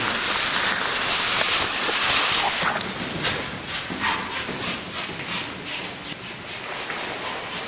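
Rustling and scuffing of a caver's oversuit and gear while moving through a cave passage. A loud rushing hiss fills roughly the first three seconds and cuts off abruptly; after that come quieter, irregular scrapes and rustles.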